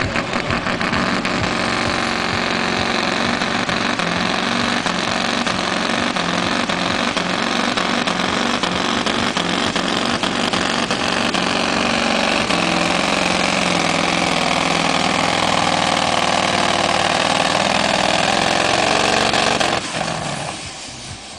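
Scania V8 truck engine running at full power under heavy load as it drags a pulling sled, a steady loud exhaust note that holds for about twenty seconds and then drops off sharply as the pull ends.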